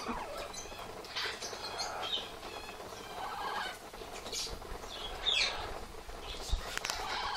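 Amazon parrots squawking and chattering in short, varied calls over the steady hiss and patter of an aviary misting system spraying water, with one louder call sweeping downward about five seconds in.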